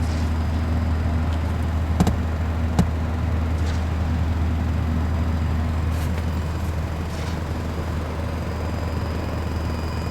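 Car engine idling, heard inside the cabin as a steady low hum. Two sharp clicks come about two and three seconds in.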